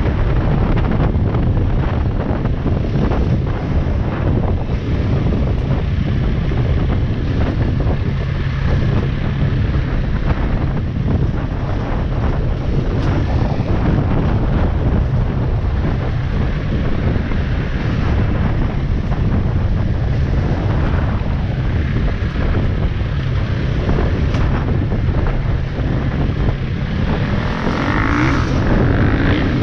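Off-road motorbike being ridden along a rough dirt track: wind buffeting the microphone over the engine's running, with many small knocks from the bumpy ground. Near the end the engine's pitch briefly rises.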